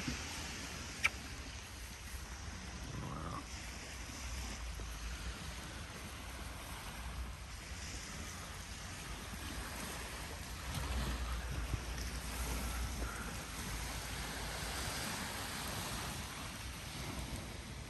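Small waves washing onto a pebble beach, with wind rumbling on the microphone, strongest about eleven seconds in. A single sharp click about a second in.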